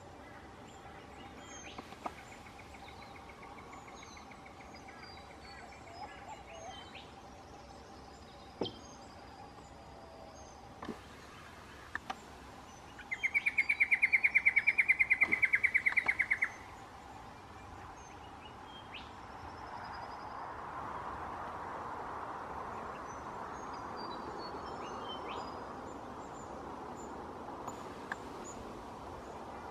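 Birds chirping in the bush, with short scattered calls throughout. About halfway through, a loud rapid trill of fast, even pulses lasts about three seconds. A soft steady rushing noise fills the second half.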